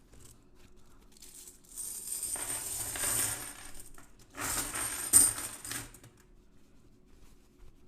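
Franklin half dollars, 90% silver coins, poured out of a cloth bag onto a table in two pours: a dense clatter of coins lasting about two seconds, then a shorter one with a single sharp clink in the middle.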